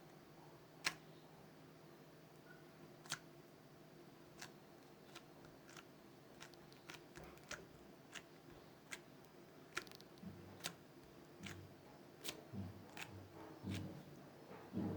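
Homemade slime being mixed by hand, making faint sticky clicks and small pops at irregular intervals. The clicks come more often later on, and low dull thumps join them over the last few seconds.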